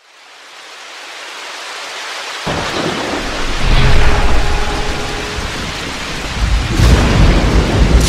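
Rain and thunder sound effect: rain hiss fading in, then deep rolling thunder coming in about two and a half seconds in and swelling again near the end.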